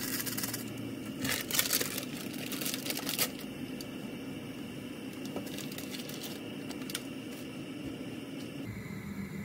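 Plastic seasoning packet crinkling as it is squeezed and shaken out over the pot, in a crackly spell from about one to three seconds in, over a steady hiss from the gas burner and simmering pot.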